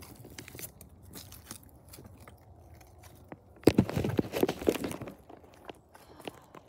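Handling noise from a handheld phone: scattered light crackles, then a louder rubbing, crackling burst lasting about a second and a half a little past halfway, as something brushes over the microphone while the lens is covered.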